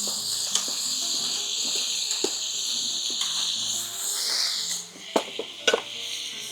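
Frozen thin-sliced pork belly and kimchi sizzling on a griddle over a wood fire: a steady high hiss that dies away about five seconds in. A few sharp clicks.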